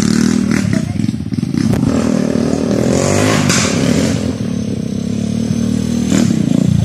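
A 150 cc dirt bike's engine running and revving, its pitch climbing about two seconds in, easing off, then picking up again near the end.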